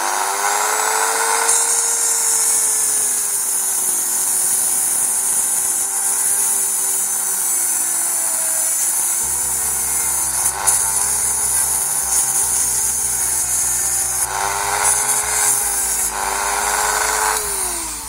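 High-speed rotary tool running under load as it grinds away hard plastic from a car's dashboard air vent. Its whine wavers slightly as the cut bites, then winds down in pitch near the end as the tool stops.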